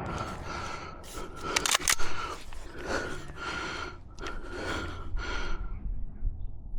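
Clicks and rustling of a shooter moving and handling gear between shots, with a few sharp clicks about one to two seconds in; no shot is fired.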